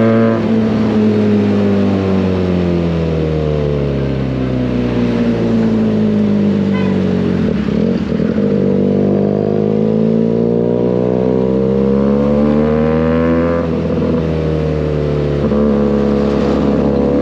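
Benelli 302S's 300 cc parallel-twin engine running through an SC Project exhaust while riding. The engine note falls as the bike slows over the first few seconds, climbs steadily under throttle to about two-thirds of the way through, drops sharply at a shift or throttle lift, then climbs again and drops once more near the end.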